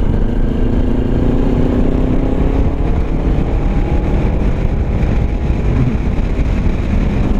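Kawasaki Ninja 250R's parallel-twin engine running on the move, its pitch climbing slowly over the first few seconds as it gains speed and then holding steady, under heavy wind buffeting on the microphone.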